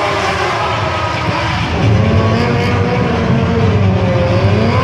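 Stunt motorcycle engine revving, its pitch rising and falling. About two seconds in, a louder, deeper engine rumble joins it.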